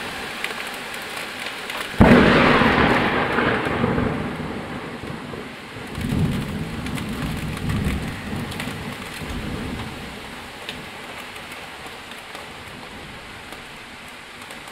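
Heavy rain hissing down on a paved street. About two seconds in, a sudden loud thunderclap breaks out and rolls on as rumbling thunder, swelling again twice before fading out over several seconds, leaving the steady rain.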